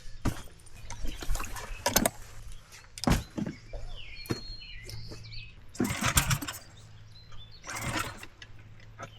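A boat's motor idling with a steady low hum, under irregular knocks and thumps of gear being handed aboard and set down in the boat.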